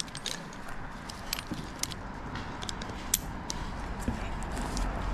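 Climbing gear on an arborist's harness clinking as the climber moves on spikes up the stem: many small, irregular metallic clinks.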